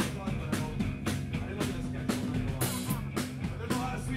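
Rock band playing live: electric guitars, bass guitar and a drum kit driving a steady beat.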